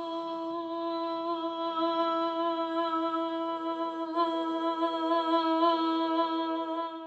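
One long, steady hummed note at a single pitch with a slight waver, held for about seven seconds and stopping at the very end.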